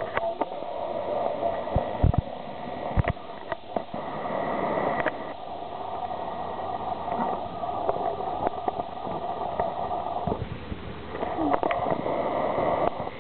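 Steady background hum of a workshop, with scattered knocks and clicks from handling a cloth and a batik stamp block on a padded table; the hum dips briefly near the end.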